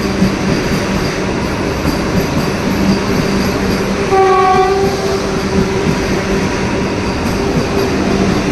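Vande Bharat Express electric trainset running into the platform with a steady rumble of wheels on rail and a low motor hum. About four seconds in, a single short horn blast sounds.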